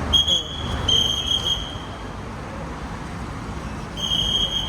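Three high electronic beeps of uneven length, the middle one the longest, over a low steady rumble of vehicle and traffic noise.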